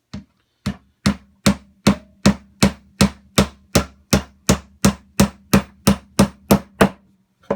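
A hammer driving a nail into the wooden finger-jointed corner of a Langstroth deep hive body, with one light tap and then a steady run of about 18 sharp strikes at roughly three a second.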